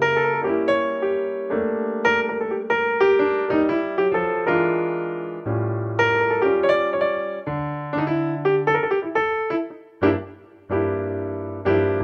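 Background solo piano music: a gentle melody over chords, each note struck and fading, with a brief pause about ten seconds in.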